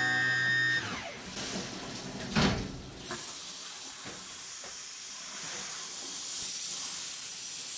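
CNC mill spindle whining as it cuts an aluminium connecting rod under flood coolant; the whine falls and stops about a second in. A single thump follows a couple of seconds in, then a steady high hiss of spray washing over the fixtured rod.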